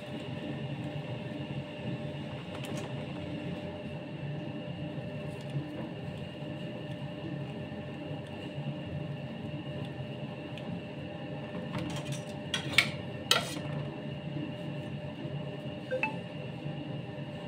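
Steady low background hum, with a quick run of sharp clinks and clicks from cake-decorating tools being handled about two-thirds of the way through, and one lighter clink shortly before the end.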